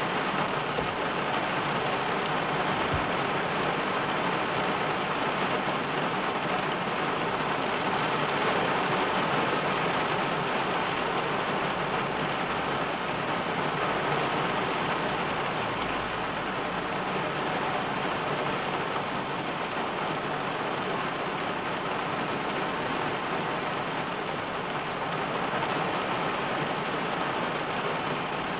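Heavy rain falling on a car's roof and windshield, heard from inside the cabin: a steady, even hiss of dense drops.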